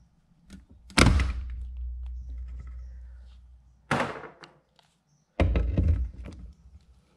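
Cordless power tool driving a mower-deck spindle mounting bolt through a long socket extension, in three short bursts with knocks against the steel deck. The first, about a second in, is the loudest and trails off slowly; the others come about four and five and a half seconds in.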